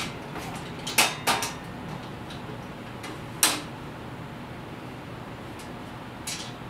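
Sharp metal knocks and clanks from the steel frame and hardware of a rolling tool cart being handled during assembly: one at the start, two close together about a second in, another in the middle, and a fainter one near the end.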